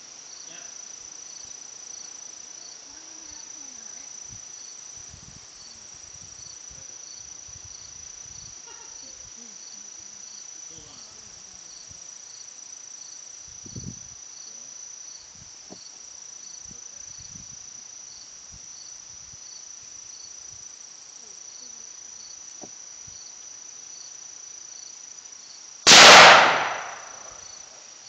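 Insects chirping in a steady high, even tone with a quicker regular pulse beneath it. About two seconds before the end comes a single very loud rifle shot that dies away over about a second and a half.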